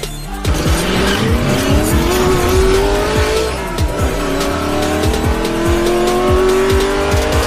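Race car engine sound effect revving up over electronic intro music with a steady beat. The engine pitch climbs steadily, drops once about four seconds in, and climbs again.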